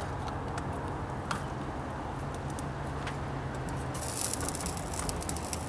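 Light clicks and rattles of ribs being turned over on a smoker's wire rack, over a steady low hum. A higher hiss joins about four seconds in.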